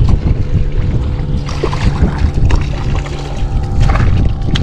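Wind buffeting the microphone out on open water, with a steady low hum under it and a few brief splashes or knocks against the hull.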